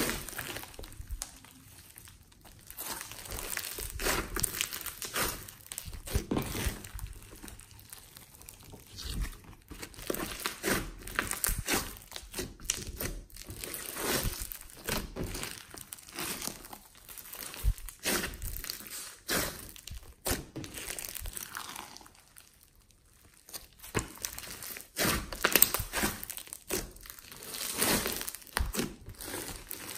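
Hands squeezing, stretching and kneading a big mass of glossy slime mixed with foam beads, giving wet, crackling clicks and squelches in irregular clusters, with a brief lull about three-quarters of the way through.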